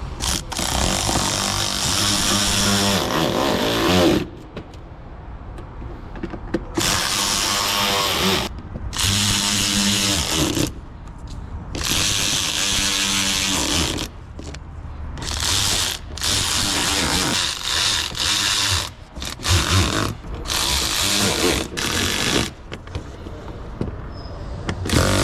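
A power tool, such as a cordless drill or driver, runs in about ten short bursts of one to three seconds each. It is driving in the fasteners of a car's fender liner.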